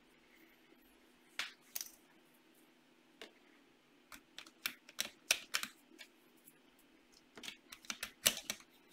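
Irregular light clicks and taps of hands fitting a small USB cable to a power bank on the back of a LEGO Mindstorms robot, a few scattered at first, then two quick runs of clicks in the second half.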